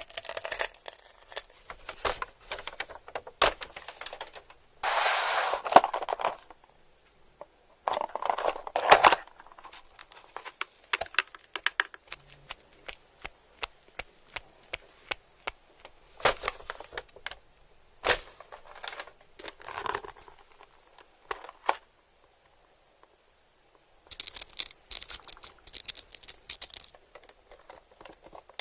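Close-miked eating sounds: sharp clicky crackles and short noisy bursts of biting and chewing, with a silent pause about three quarters of the way through.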